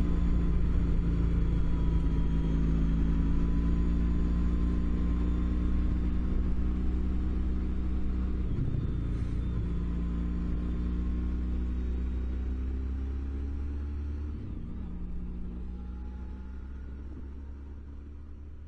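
A vehicle engine running with a steady low drone, its pitch drifting slightly, the sound gradually fading away.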